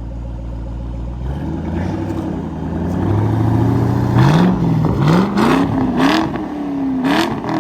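2006 Ford Mustang GT's 4.6-litre V8 through a Corsa Extreme axle-back exhaust, idling and then revved, its pitch climbing and rising and falling several times with some sharp crackles. The exhaust note is loud.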